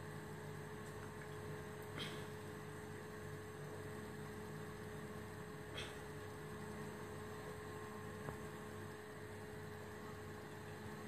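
Steady low electrical hum, with three faint short ticks about two, six and eight seconds in.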